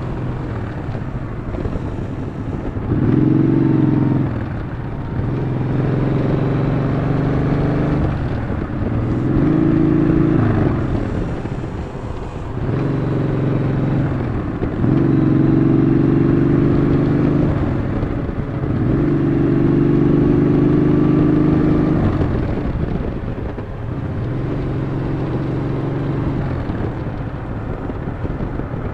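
Yamaha XV950 (Bolt) air-cooled V-twin engine heard from on board while riding. The engine note swells and eases off in spells of a few seconds each.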